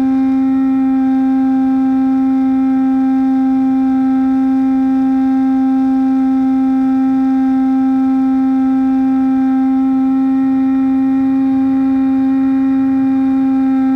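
Brushless outrunner motor (Turnigy D2826-6 2200kV) spinning a 6x5 inch propeller at steady cruise throttle: a constant pitched drone that holds one note throughout, with a little wind rush beneath it.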